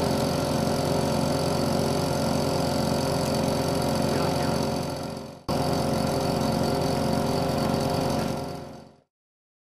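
An engine runs at a steady, even pitch. It fades out about five seconds in, cuts back in abruptly, then fades away near the end.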